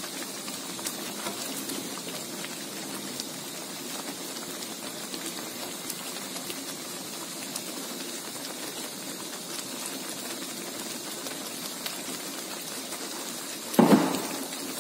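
Chili and coconut-milk sauce simmering in a wok: a steady bubbling and spattering with small ticking pops. Near the end there is one brief, louder thump.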